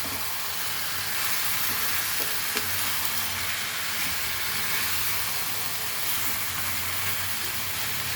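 Chicken pieces sizzling in a hot pan of masala, a steady hiss as the chicken releases its own water.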